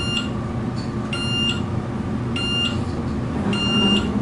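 Four short electronic beeps from the elevator car, evenly spaced about 1.2 seconds apart, over the steady low hum of the car travelling.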